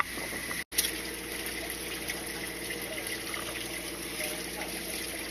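Water running steadily with a low steady hum beneath it; the sound cuts out for an instant just under a second in.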